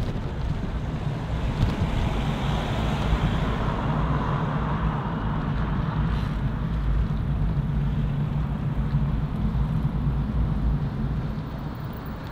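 City road traffic with a steady low rumble; the hiss of a passing vehicle swells in the first few seconds and fades away toward the end.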